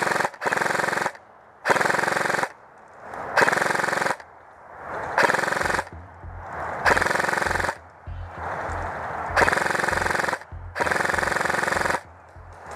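Airsoft AK-pattern rifle firing about seven short full-auto bursts, each under a second long, a rapid rattle with brief pauses between bursts.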